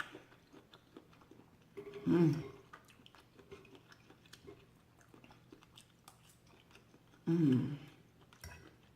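Close-miked chewing and small wet mouth clicks of someone eating, with two short hums, about two seconds in and again near the end.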